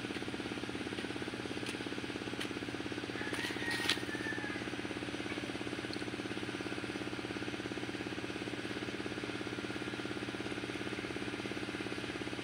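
A small engine running steadily, a low drone with a fast even pulse. A few clicks and rustles about three to four seconds in.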